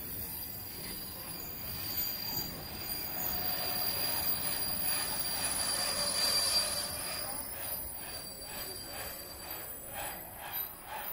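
Passenger coaches of a slow-moving train rolling past, their steel wheels squealing against the rails in steady high tones over the rumble of the running gear, with a regular pulsing in the last few seconds.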